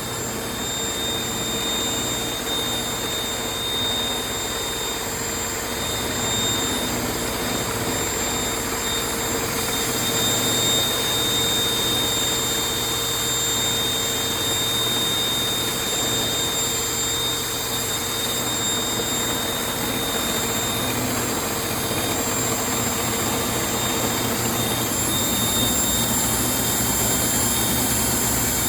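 Table saw and drill running together as a spinning square blank is cut round and tapered for a wagon-wheel spoke on a table-saw lathe jig: a steady machine whine over the rasp of cutting.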